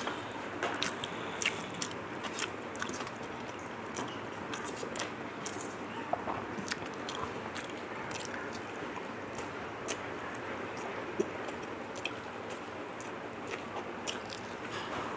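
A person chewing mouthfuls of rice and curry close to the microphone, with many small sharp smacks and clicks of the mouth.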